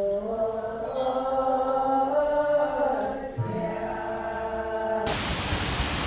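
Chant-like vocal music in slow, long-held notes. It cuts off abruptly about five seconds in and is replaced by a steady, loud hiss.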